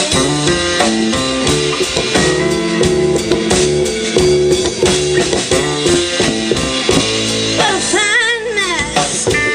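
A live blues band plays an instrumental stretch: electric guitar over a drum kit with a steady beat. A wavering, bending note stands out near the end.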